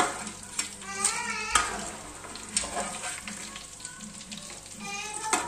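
Raw banana slices sizzling as they deep-fry in oil in a large metal pot, with a few sharp knocks along the way.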